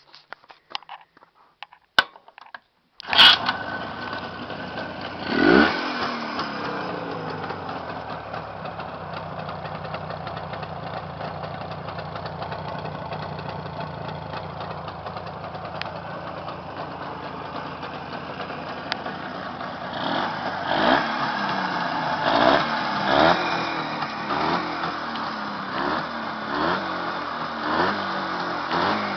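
A freshly repaired engine starts up abruptly about three seconds in, revs briefly, then idles steadily. In the last third the throttle is blipped over and over in short revs.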